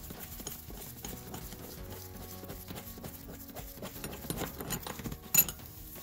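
Ratchet clicking in short runs as a T50 Torx seat-belt anchor bolt is undone, with one sharp metal click near the end. Soft background music underneath.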